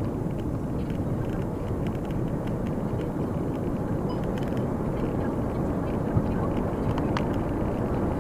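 VW Touran 1.2 TSI driving, heard from inside the cabin: a steady rumble of tyres on the road and the engine running. A few faint clicks and rattles sound over it.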